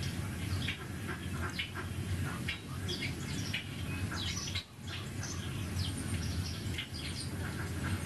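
Small songbirds chirping and calling at a bird feeder, played through a television's speakers. Many short, high chirps come scattered throughout, over a steady low hum.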